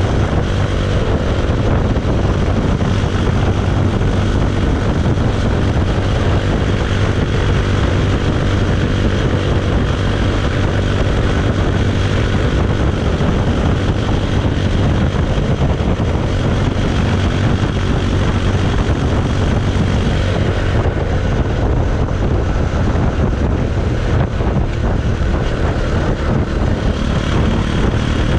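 Bajaj Pulsar 220 motorcycle's 220 cc single-cylinder engine and exhaust running loud and even at a steady, unchanging pitch.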